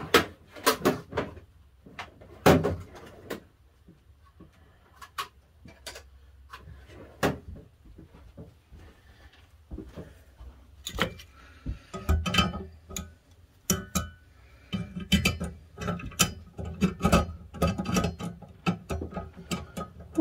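Irregular clinks, taps and knocks of metal hand tools being handled against cast-iron andirons on a workbench, as pliers are worked onto a rusted leg screw.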